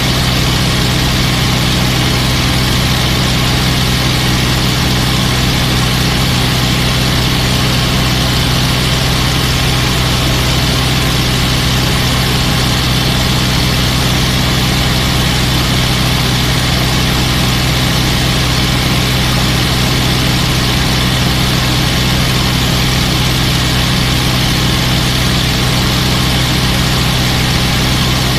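P-51 Mustang's Packard Merlin V12 engine running steadily in flight, heard from inside the rear cockpit: an even low drone under a constant hiss.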